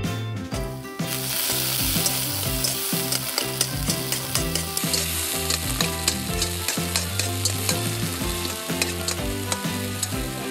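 Hot oil sizzling in a miniature frying pan as minced aromatics fry, starting about a second in, with many small ticks from a tiny fork stirring against the pan. Background music plays under it throughout.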